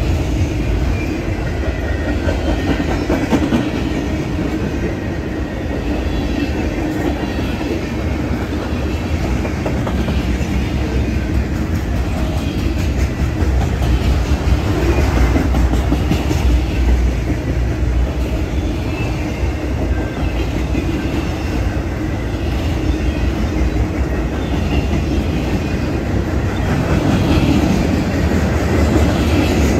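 Freight train cars rolling past close by: a steady rumble of steel wheels on rail, with repeated clacking as the wheels cross rail joints.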